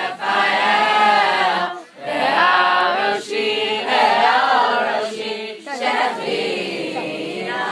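A group of voices singing together, in phrases with brief pauses between them.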